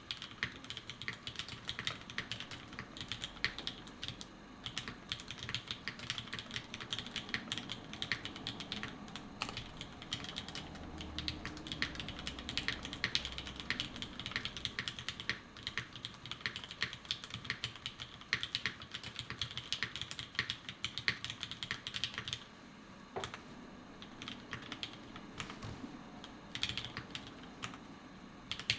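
Fast, continuous typing on a prototype Ex Arkhe V1 mechanical keyboard with lubed MX Black Hyperglide linear switches, an aluminium plate and GMK keycaps, heard through the camera's built-in microphone. There is a short lull about three-quarters of the way through.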